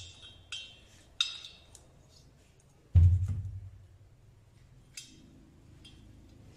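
Engine parts being handled on a workbench: a few light metallic clinks in the first second and a half, then a heavy dull knock about three seconds in, the loudest sound, with a short low ring. Another click comes at about five seconds, followed by a faint low hum.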